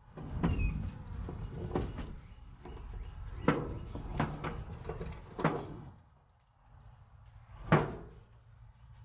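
Charcoal briquettes knocking and clattering in a grill's firebox as they are added and shifted by hand: several sharp knocks over the first six seconds and one loud knock near the end.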